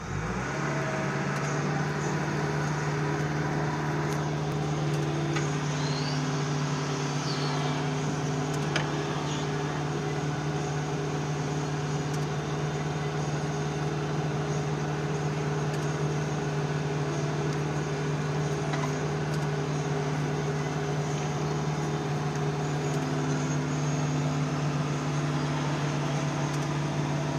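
12-ton digger's diesel engine running steadily, heard from inside the operator's cab while the bucket is worked, a constant low hum.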